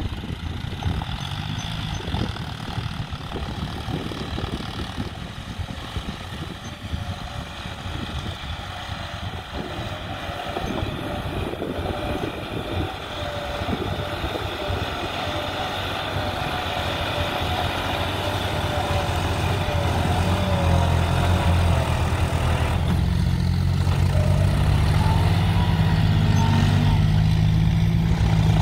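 Farm tractor diesel engines working a muddy field, growing steadily louder as a tractor with a front dozer blade drives up close. Its low, steady engine hum is loudest over the last several seconds.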